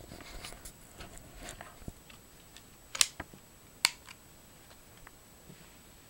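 Light plastic handling and rustling, then two sharp clicks a little under a second apart, about three seconds in: a netbook battery pack being pushed into its bay on the underside of an Asus Eee PC 1005HA and snapping into its latches.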